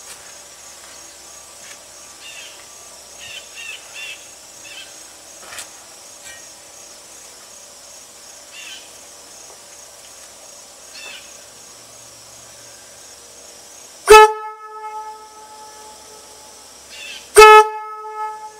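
One horn from a Leslie locomotive air horn set, blown twice in short blasts about three seconds apart, each with a sharp start and one deep tone that tails off within about a second. It is fed only 40 psi of air instead of the usual 125–150 psi, which the owner expects makes its tone a little lower than it should be.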